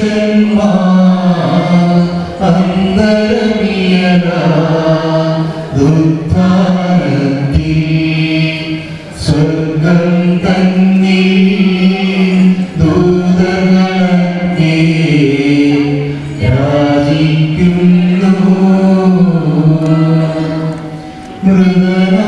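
Slow, chant-like singing: a single melodic voice line with accompaniment, sung in long held phrases that break off every few seconds.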